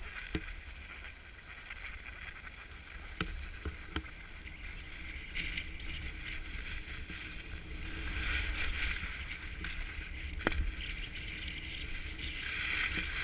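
Skis sliding and scraping over groomed snow, a hiss that swells about eight seconds in and again near the end, with wind rumbling on the microphone. A few sharp clicks.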